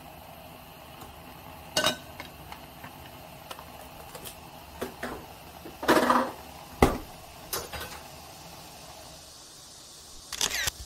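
A cooking utensil clinking and knocking against a pot in a series of irregular, sharp strikes, with the loudest clatter in the middle and another cluster near the end.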